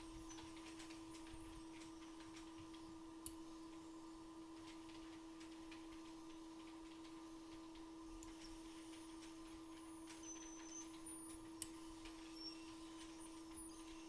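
Quiet steady hum with faint scratching and ticking from a blade scraping underfill glue off an iPhone logic board, and two sharp clicks, about three seconds in and near the end.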